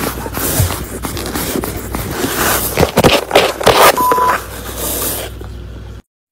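Rustling and scraping of fabric close to the microphone, with scattered clicks, loudest in the middle, and a brief steady tone about four seconds in; it cuts off suddenly near the end.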